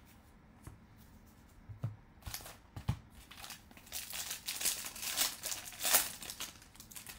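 Foil wrapper of a Bowman baseball card pack being torn open and crinkled by hand, starting about two seconds in, with the crinkling loudest near the end.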